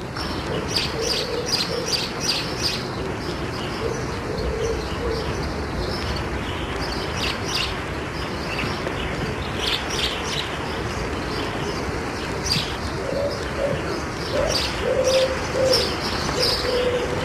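Birds: a low repeated cooing and many quick high chirps from small birds, over a steady background hiss. The cooing comes at the start and again in the last few seconds.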